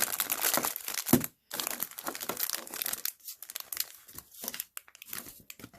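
Plastic blind bag of a LOL Surprise doll being crinkled and torn open by hand: a run of irregular crackles with a brief pause about a second and a half in, thinning out toward the end.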